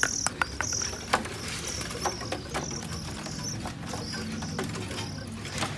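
Caged small songbirds chirping, a short high chirp repeated about once or twice a second, with scattered sharp clicks and knocks of cage handling.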